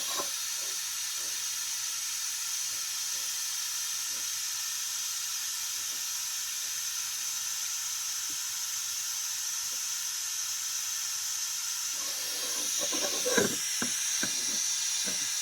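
Steady white-noise hiss from a white-noise test of a 10-metre SSB transceiver, with little low end. A few faint knocks near the end.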